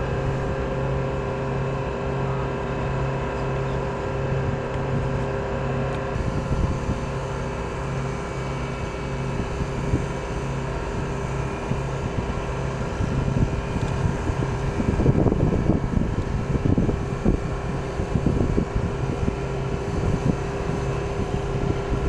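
Steady engine drone with a low, pulsing hum, from machinery running beside the parked aircraft. Rough wind-like noise gusts over it from about halfway through.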